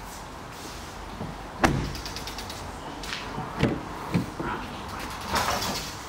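Car door of a Mercedes-AMG A45 being handled: a sharp thud about a second and a half in, then two lighter knocks and a short rustle near the end.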